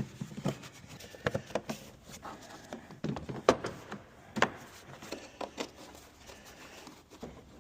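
Scattered clicks and knocks of tools and parts being handled in a car's engine bay, with two louder knocks a little past the middle.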